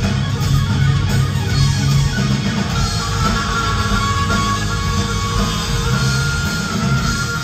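Live rock band playing loud through the PA: electric guitars, bass guitar and drums, with a held high lead line coming in about three seconds in.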